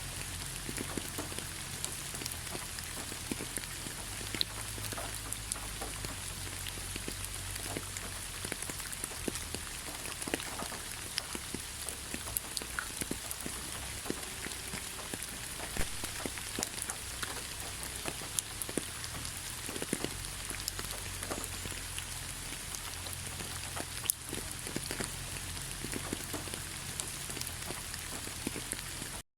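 Steady rain falling in a forest: an even hiss with many single drops ticking close by, over a low rumble.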